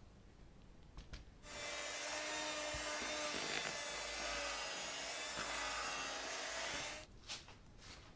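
Electric hand mixer running steadily, its beaters whisking whipped cream into a margarine and custard filling in a plastic bowl. It starts about a second and a half in and stops near the end, followed by a couple of light knocks.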